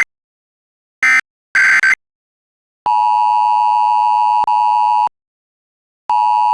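Mock Emergency Alert System signal: three short bursts of data tones in the first two seconds, then a loud, steady electronic alert tone that drops out once briefly, stops, and sounds again about a second later.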